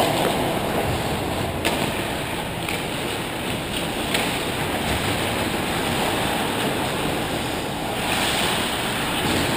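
Ice hockey rink during play: a steady rushing noise of skating and the arena, with two sharp clacks, and a louder skate scrape near the end as the goalie pushes across his crease.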